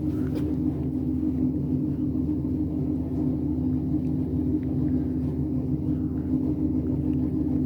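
2002 FI-VF3 high-speed emergency elevator heard from on top of the car as it travels the hoistway: a steady rumble with an even mechanical hum, plus a few faint ticks.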